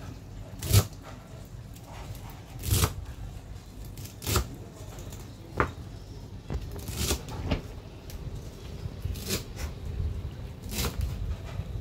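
Irregular knocks and clicks of a kitchen knife cutting celery on a wooden cutting board, roughly one every second or two.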